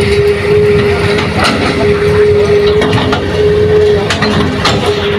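Hitachi hydraulic excavator's diesel engine running under load as its bucket digs into a soil pile, with a steady hum throughout and scattered knocks of earth and stones against the bucket.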